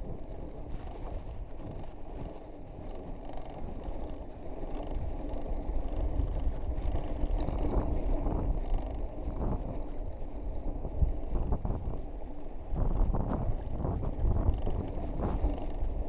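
Wind buffeting the microphone and the rumble of a mountain bike's tyres rolling over sandstone slickrock, with uneven jolts, louder in the second half.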